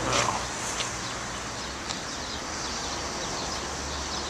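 Outdoor city-park ambience: a steady low hum of traffic under small birds chirping, with one short, sharp call-like sound right at the start that drops in pitch.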